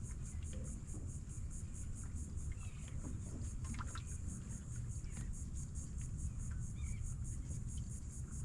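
Insects chirping in a steady, high-pitched pulse, about four to five chirps a second, over a low rumble.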